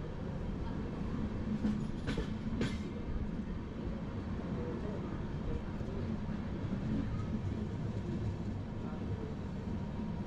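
Passenger train running slowly on the track: a steady rumble of wheels and coach, with two sharp clicks about two seconds in.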